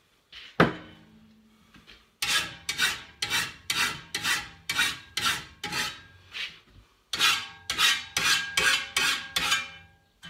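Flat file stroked across the teeth of a Husqvarna 525RX brushcutter's steel grass blade held in a bench vise, sharpening it by hand. It rasps about twice a second in two runs of strokes with a short pause between, and the blade gives a faint metallic ring. A single sharp knock comes about half a second in.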